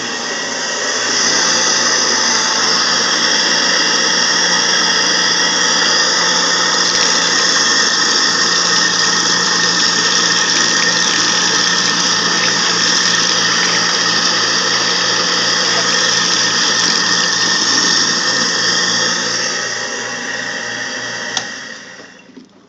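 Kitchen-sink garbage disposal running with tap water pouring into it, a steady motor hum under the hiss of the water, while the drain stays clogged. The sound stops about 21 seconds in.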